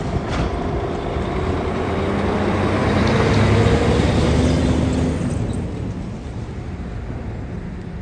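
Heavy diesel box truck driving past close by: engine running and tyres rolling, growing louder to a peak about three and a half seconds in, then fading as it pulls away.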